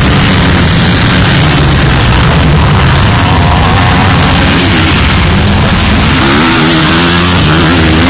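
Motocross dirt bike engines running loud under racing throttle, with a bike's revs rising sharply about six seconds in as it accelerates.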